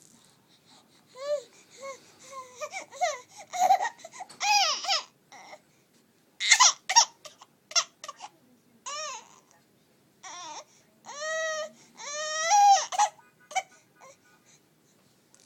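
A three-month-old baby's high-pitched squeals and screeches, the "velociraptor noises": a string of short calls that rise and fall in pitch, with a few longer drawn-out ones near the end.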